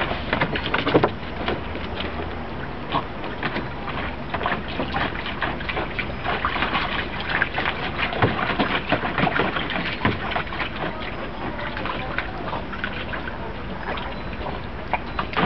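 Shallow water in a kiddie pool splashing and sloshing in quick, irregular splashes as a lab–border collie puppy paws and snaps at it, over a steady hiss of water spraying from a hose-fed sprinkler toy.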